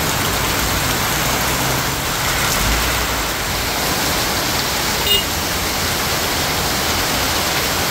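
Heavy tropical rain pouring down steadily onto the road and surroundings, with vehicles driving through on the wet road. A single short sharp sound cuts in briefly about five seconds in.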